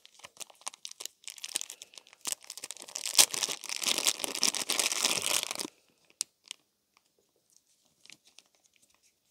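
Blue plastic bag crinkling and rustling as a small camera battery is pulled out of it, dense for about five and a half seconds, then stopping, with only a few light handling clicks after.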